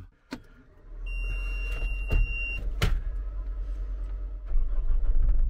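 Skid steer starting up: a click, then a steady high warning beep for about a second and a half as the engine cranks and catches. The engine then runs steadily, with its revs coming up near the end.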